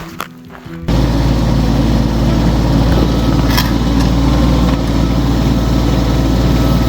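Diesel tractor engine running steadily and loudly close by, cutting in abruptly about a second in.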